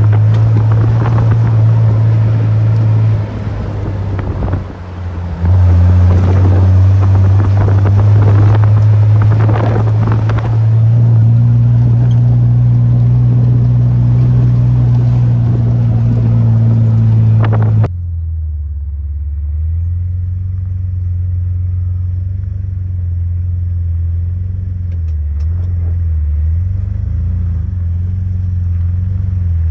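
Jeep Wrangler engine running as it drives a rough dirt trail, a steady low drone with rattling and wind noise, dipping briefly around three to five seconds in. About two-thirds of the way through the sound turns quieter and duller, the engine now heard from outside the Jeep as it crawls slowly, its pitch wavering with the throttle.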